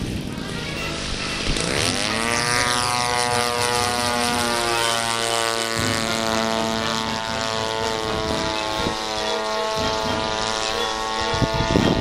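Propeller drone of a large-scale RC model Ford Trimotor flying past overhead. The engine note falls in pitch about two seconds in as the plane goes by, then holds a steady pitch.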